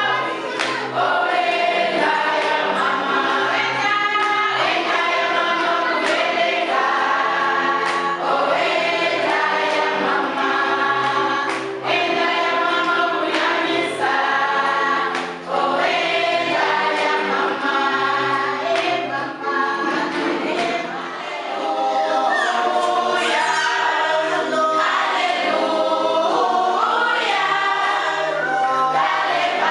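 Choir singing a gospel song, many voices together with no words spoken over it.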